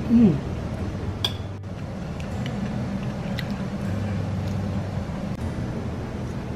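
A woman's short falling "mmm" while tasting food just at the start, then a few light clicks of a metal spoon against ceramic dishes over a low steady hum.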